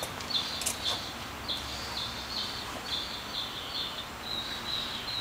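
A songbird singing a repeated series of short, high notes, about two or three a second, which come faster and flatter from about four seconds in. A couple of sharp clicks sound in the first second.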